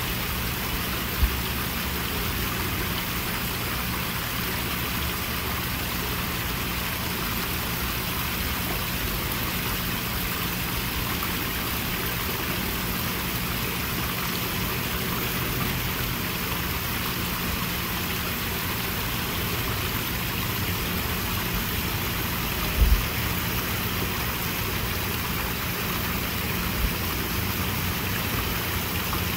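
Small garden-pond waterfall splashing steadily, with a low steady hum underneath. A few brief low thumps, the loudest about a second in and again about three quarters of the way through.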